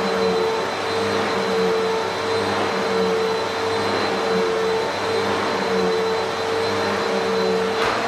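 2000s upright vacuum cleaner running steadily at full speed: a loud rush of air with a constant motor hum and a thin high whistle above it. A single sharp click comes just before the end.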